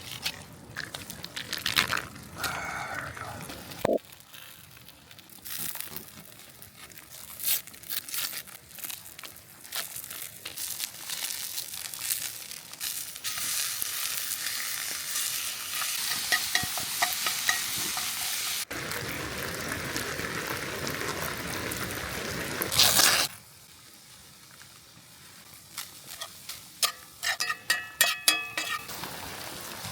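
Ground beef frying in a cast-iron skillet over campfire coals: a steady sizzle with the clicks and scrapes of a utensil stirring it. The sizzle grows louder through the middle and changes abruptly a few times.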